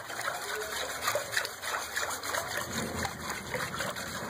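Thin batter of gram flour and yogurt lassi sloshing and splashing in a bowl as it is beaten by hand, in a quick irregular run of wet slaps.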